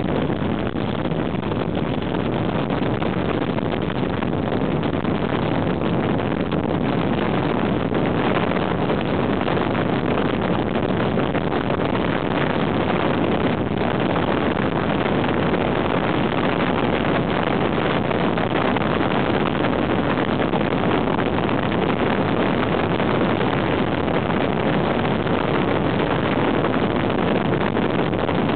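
Motorcycle riding at a steady road speed, with a constant rush of wind noise on the microphone blending with engine and tyre noise.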